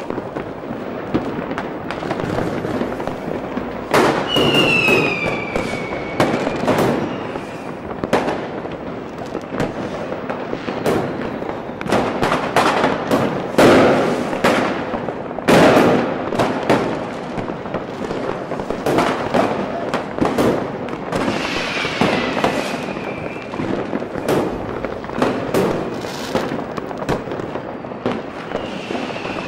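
Fireworks display: aerial shells bursting one after another in an irregular, quick succession, the loudest bangs about a third and half-way through. A high whistle falling in pitch sounds three times, about four seconds in, past the two-thirds mark and at the very end.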